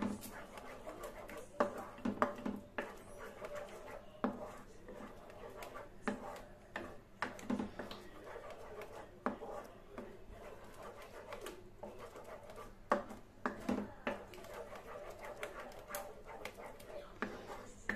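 Spatula stirring thick sauce in a steel kadhai: scraping strokes over the pan's bottom, with irregular sharp knocks against the metal.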